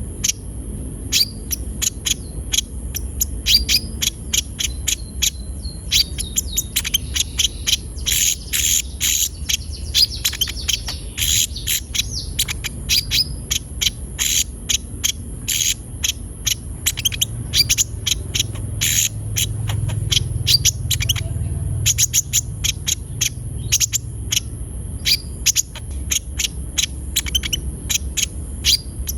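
Olive-backed sunbird singing energetically: a fast, unbroken string of sharp, high chirps and twittering trills. A steady high-pitched whine like an insect runs underneath.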